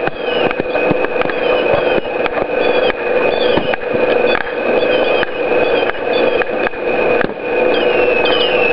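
Onboard sound of a radio-controlled model landing craft under way: a steady motor whine with crackling clicks and repeated short falling whistles.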